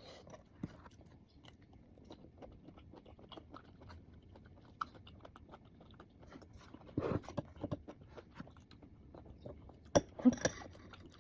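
Close-miked chewing and biting of mango with alamang shrimp paste: a run of many short mouth clicks, with louder bites about seven seconds in and again near the end.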